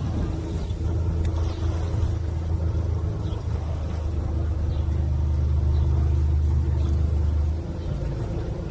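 An engine running steadily with a low hum, easing off about three-quarters of the way through.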